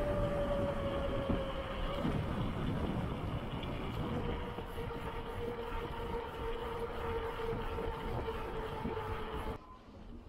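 Loaded touring bicycle rolling fast on asphalt: tyre roar and wind rush on the handlebar camera, with a thin steady whine that slides slightly lower in pitch and then holds. The noise drops off sharply near the end.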